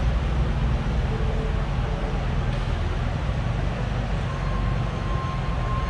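Steady low rumble of background noise in a large factory hall, with a faint steady high tone joining about four seconds in.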